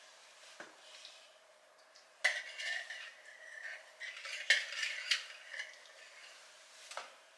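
Wire whisk clinking and scraping against a glass bowl as an egg is beaten, in irregular spurts that start about two seconds in, with a last single clink near the end.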